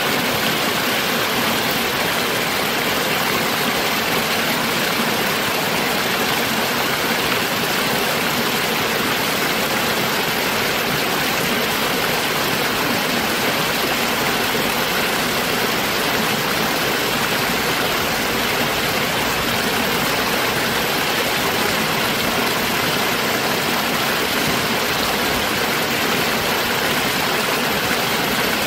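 Small stream of water splashing steadily over a low rocky cascade into a shallow pool, an even rushing hiss that does not change.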